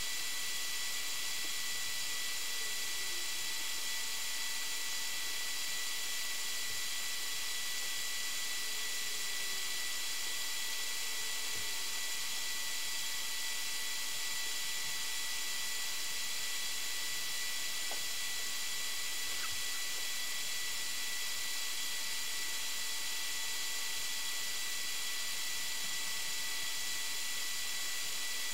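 Steady hiss with a few faint, constant high whine tones underneath: recording self-noise from a camera's built-in microphone and circuitry.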